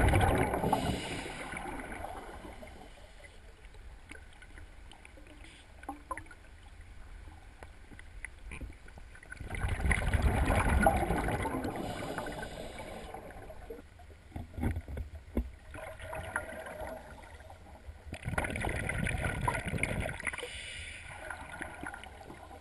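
Scuba diver's exhaled bubbles gurgling out of the regulator underwater, in three long bursts about nine seconds apart, with quieter stretches between breaths.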